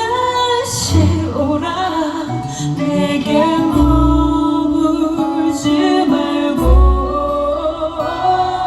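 A female singer performing live with a band: a sung melody over band accompaniment with deep bass notes.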